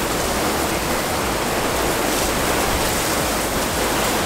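Heavy rain in a severe storm: a loud, steady rush of noise.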